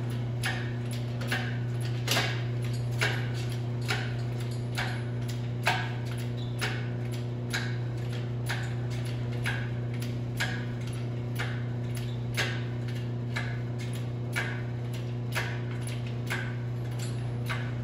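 Steady low mechanical hum with a light click repeating evenly about twice a second.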